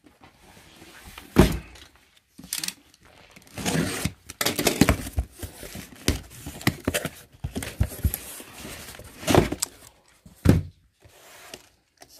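Cardboard boxes being handled: a box lifted out of a large carton and set down with several thumps, then its taped flaps pulled open with cardboard scraping and rustling.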